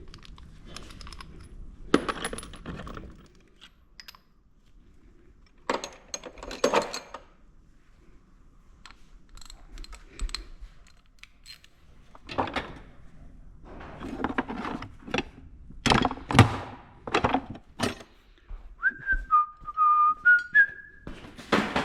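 Metal tools or parts clinking and clattering in scattered bursts, busiest in the second half. Near the end a man whistles a few short notes.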